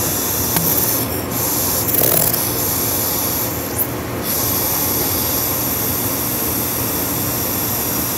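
Pneumatic caulking gun hissing with compressed air as it dispenses silicone. The hiss breaks off briefly about a second in and again around four seconds, as the trigger is let off.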